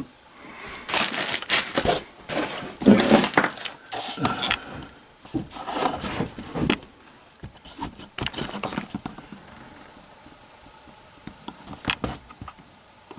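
Handling noises: a run of short clicks, knocks and rustles as gear is moved about at a shooting bench, quieter in the last few seconds apart from one sharp click near the end.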